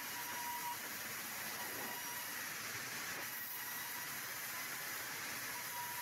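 Large vertical band sawmill running and cutting a timber slab, a steady hissing machine noise with a faint thin whine that comes and goes.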